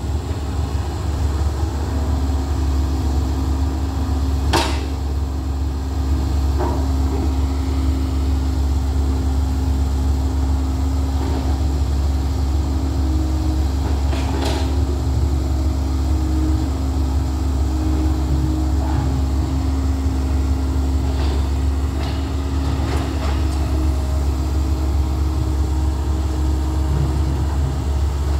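Komatsu hydraulic excavator running with a steady low diesel drone as it swings, with sharp clanks now and then from the bucket and rock, the loudest about five seconds in and about fourteen seconds in.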